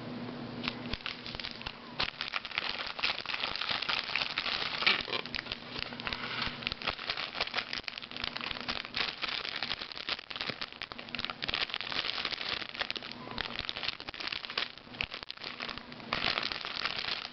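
Plastic packaging of an instant noodle pack crinkling and crackling continuously as it is handled and opened.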